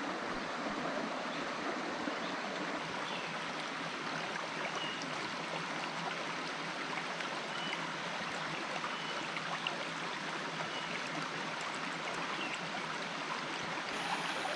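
Creek water running over rocks: a steady, even rush of flowing water.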